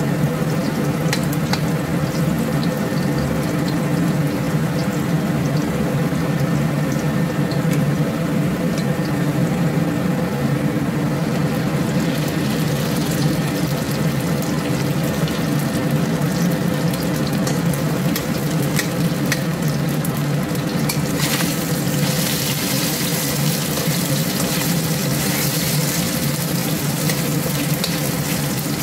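Garlic and diced chicken frying in hot oil in a wok, stirred with a spatula: a steady sizzle with scattered scrapes and clicks of the spatula, over a constant low hum. The sizzle turns louder and hissier about three-quarters of the way through.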